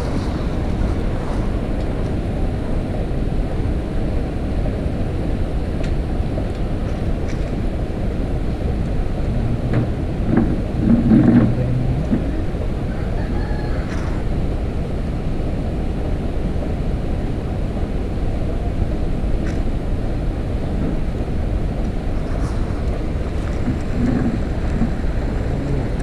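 Wind buffeting the microphone: a steady low rumble, with a faint indistinct voice briefly about ten seconds in.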